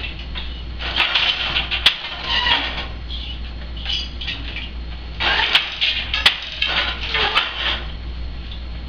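Wooden clatter and knocks of a countermarch floor loom being woven: the boat shuttle passed through the shed and the beater knocking the weft into place, in two spells of activity. A steady low hum lies underneath.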